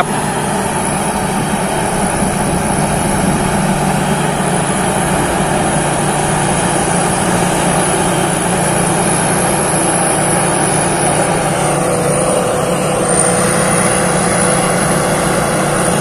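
Thai Seng Yont rice combine harvester cutting and threshing standing rice: its engine and threshing machinery running with a loud, steady mechanical noise that holds even throughout.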